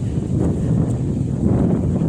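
Wind buffeting the microphone: a loud, gusting low rumble with no clear tone.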